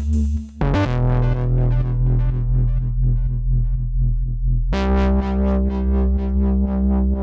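Electronic background music: synthesizer notes repeated rapidly over a deep held bass, with a brief drop about half a second in and a change of chord a little past the middle.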